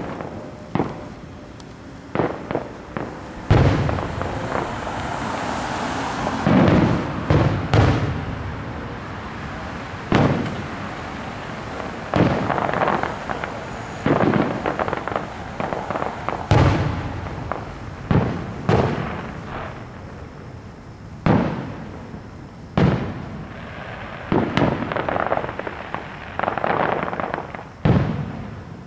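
Aerial fireworks shells bursting one after another at irregular intervals, each a sharp bang followed by a rolling rumble. Some bursts break into a spell of rapid crackling.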